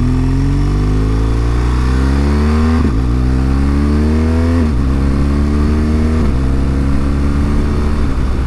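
BMW R1200GS Adventure's boxer twin engine pulling up through the gears. Its note climbs, drops at an upshift about three seconds in, climbs again, and drops at a second upshift past halfway before holding steady. Wind rush on the helmet-mounted mic runs underneath.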